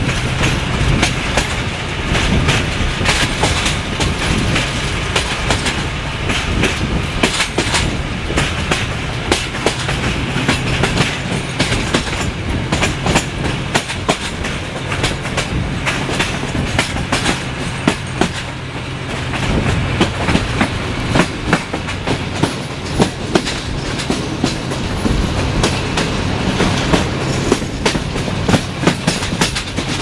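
Passenger train wheels running over rail joints at speed: a rapid, irregular clickety-clack of clicks over a steady rolling rumble, heard through an open carriage window. Underneath is the low steady drone of the LDH diesel-hydraulic locomotive, which weakens about eighteen seconds in.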